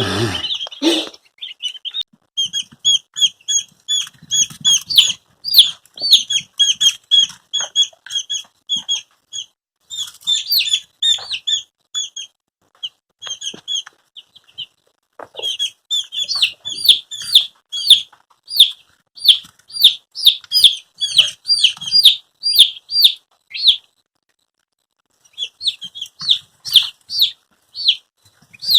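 Cornish Cross meat chicks peeping: a rapid run of short, high chirps, several a second, which stops briefly a few seconds before the end. A brief knock comes right at the start.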